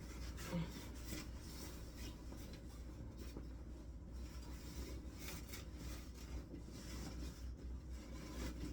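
Faint, irregular rustling and rubbing of a costume shirt being worked onto a tall animatronic figure, with a steady low hum underneath.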